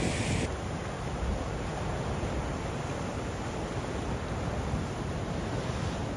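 Sea waves breaking on rocks, a steady rushing noise with wind rumbling on the microphone. The higher hiss drops off suddenly about half a second in.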